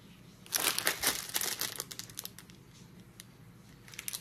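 Clear plastic bag of beads crinkling as it is handled and turned in the hand, a crackling burst of about a second and a half starting about half a second in, and a shorter one near the end.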